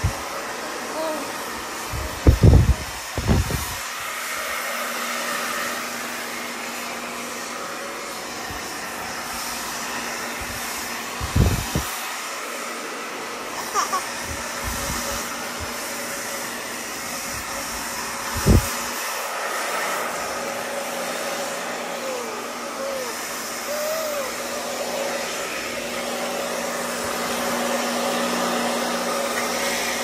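Handheld hair dryer running steadily on its lowest, cold setting, an even whoosh of air with a faint motor hum. A few short low thumps come about two, eleven and eighteen seconds in.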